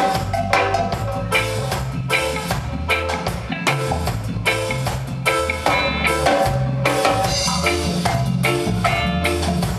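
Live band playing an instrumental passage: electric guitar picking melodic notes over bass guitar and drum kit, with a hand drum.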